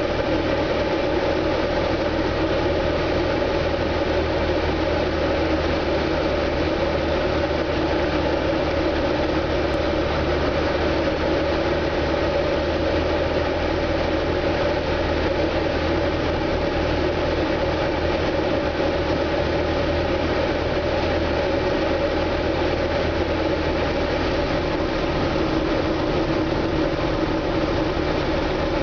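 Single-engine light aircraft's engine and propeller droning steadily, heard inside the cockpit, on a descending short approach.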